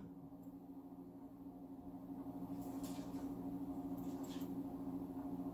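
Soft sustained chord of several low notes held on a church keyboard, slowly growing louder, with a couple of faint rustles about three and four seconds in.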